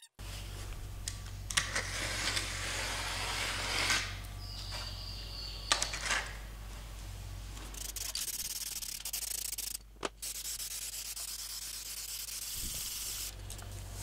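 Aerosol can of spray adhesive hissing as glue is sprayed, in long bursts with a brief break about ten seconds in. A few light knocks sound in the first seconds, over a low steady hum.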